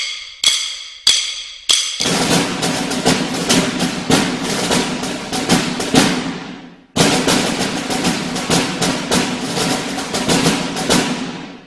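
Percussion music sting. Four sharp, ringing strikes come about half a second apart, then a fast drum roll fades away. After a short break near the middle, a second drum roll starts and fades out near the end.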